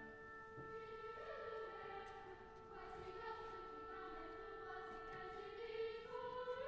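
Quiet orchestral passage: soft sustained string chords held steadily, with a higher note entering near the end.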